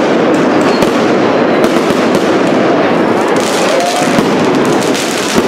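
Aerial fireworks going off overhead in a dense, steady barrage of bangs, pops and crackling stars. The crackling gets sharper about three and a half seconds in.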